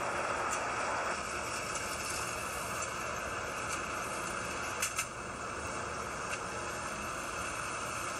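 Steady outdoor background hiss with a few short sharp clicks; the loudest, two close together, come about five seconds in.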